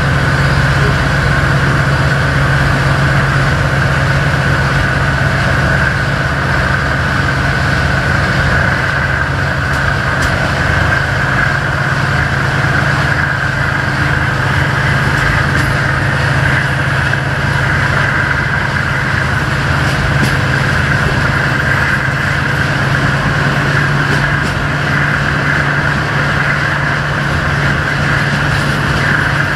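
Romanian LDH diesel-hydraulic locomotive with a Caterpillar engine running steadily under way, a constant low engine hum over the rush of the moving train, heard from an open window of the coach behind it.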